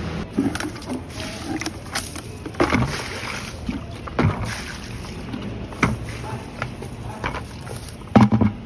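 A bucket being handled for watering: irregular knocks and clunks, with water sloshing. The loudest knocks come near the end.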